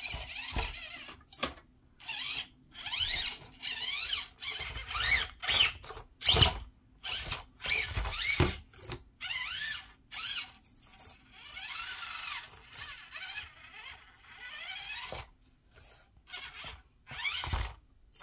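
Axial SCX24 Jeep Gladiator 1/24-scale RC crawler's stock brushed motor and gears whining in short bursts, the pitch rising and falling as the throttle is worked on and off while it crawls.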